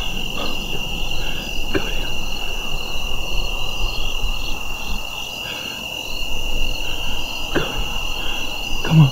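Evening insect chorus: a steady, unbroken high-pitched trill, with a few faint knocks.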